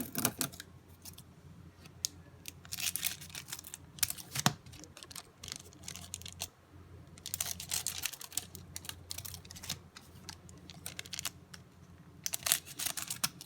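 Trading card pack wrappers being handled and torn open, with crinkly crackling and clicking in several bursts separated by quieter handling.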